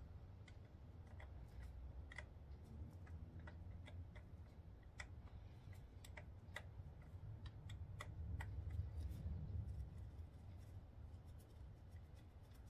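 Faint clicking of a 1/4-inch ratchet working a 10 mm bolt on top of a motorcycle starter motor, with sharp clicks coming irregularly, a few a second, over a low steady hum.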